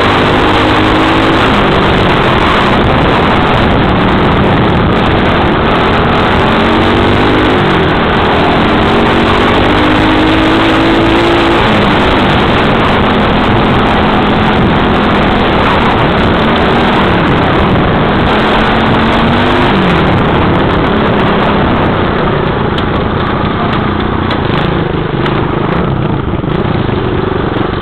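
Small dirt bike engine running under way, heard from the bike itself: its pitch climbs and drops back several times as the throttle is worked, over a steady rush of wind and engine noise.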